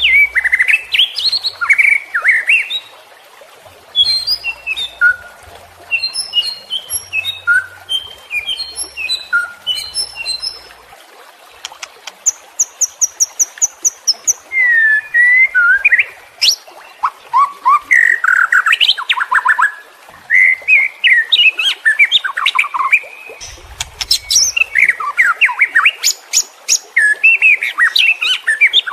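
White-rumped shama (murai batu) singing an agitated, full song: loud phrases of varied whistles, slurred notes and quick chips with short pauses between them, including a fast, high, even rattle of notes about twelve seconds in.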